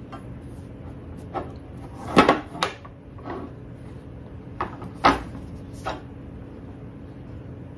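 A hardcover book and a wire book stand being handled and set down on a kitchen countertop: a series of short knocks and taps, loudest about two seconds in and again about five seconds in, over a faint steady hum.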